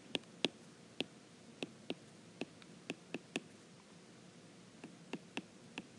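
Faint, irregular clicks and taps of a marker touching down on a whiteboard as letters and crosses are written, about fifteen strokes unevenly spaced.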